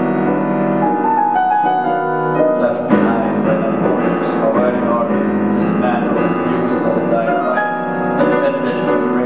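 Solo grand piano playing, many notes ringing together with moving figures over held chords.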